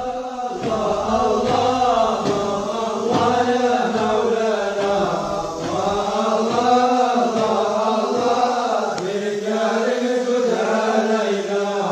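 Wordless vocal chanting of a religious nasheed: a melody that bends up and down over a steady held drone.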